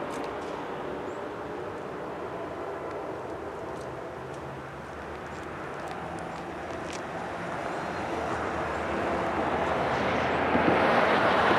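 Train rumble fading away early on. Then a Norfolk Southern intermodal freight's diesel locomotives approach, and their engine and rail noise grows steadily louder over the last few seconds.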